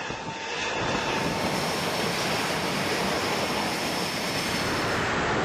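Jet aircraft engine noise: a steady, dense rushing sound that grows louder about a second in.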